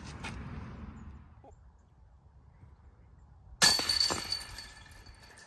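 A disc golf disc strikes the hanging chains of a metal basket about three and a half seconds in: a sudden loud clatter of chains that rings on and fades over about a second and a half. The disc is caught and drops into the basket.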